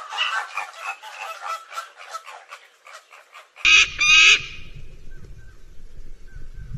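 A flock of flamingos gabbling, many rapid goose-like honking calls overlapping. About three and a half seconds in, this cuts to two loud, harsh calls from a single bird, followed by quieter background.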